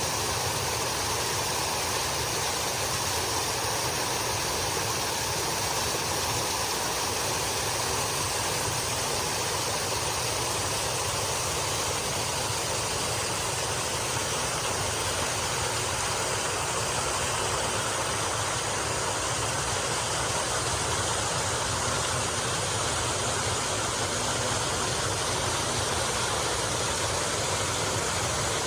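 Water from a pool's waterfall feature pouring steadily into the pool, making an even, unbroken rushing.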